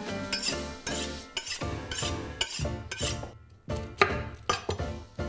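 Background music with a steady beat. About four seconds in, a kitchen knife knocks once, sharply, on a wooden cutting board.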